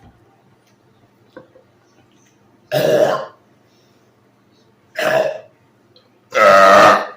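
Three loud, deliberate belches from a man who has been drinking soda, about two seconds apart, the last the longest and loudest.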